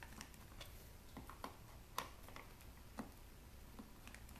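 Faint scattered clicks and ticks of a screwdriver turning screws out of an electronics cabinet's back panel, with two sharper clicks about two and three seconds in.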